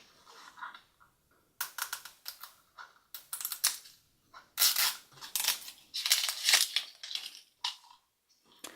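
Plastic toy packaging being handled and opened: irregular crinkling and clicking, busiest and loudest in the middle.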